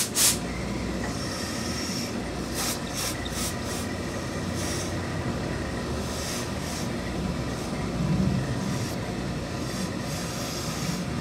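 Hose-fed tailor's steam iron pressing wool suit cloth: a sharp hiss of steam at the start, then repeated short puffs of steam over a steady rushing hiss.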